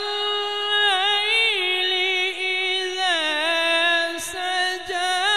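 Male qari reciting the Quran in a melodic, chant-like style, drawing out long held notes with ornamented turns and glides.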